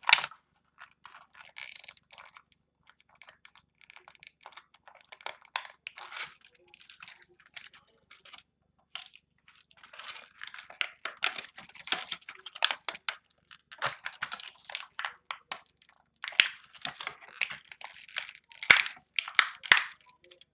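Plastic packaging crinkling and clicking under fingers in irregular bursts, with a few sharper, louder clicks near the end, as a stuck Beyblade driver is pushed and pried at in its plastic holder.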